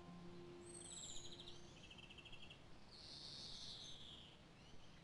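Faint bird calls: a high falling whistle, two quick trills and a louder chirp about three seconds in, as the last held notes of music fade out.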